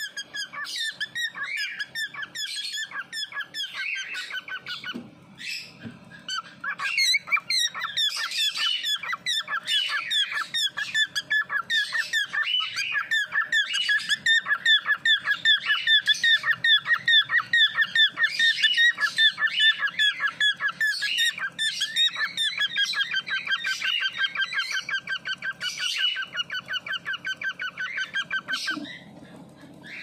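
Cockatiel chicks begging while the hen feeds them: a rapid, rhythmic run of raspy calls, several a second. They pause briefly about five seconds in and stop shortly before the end.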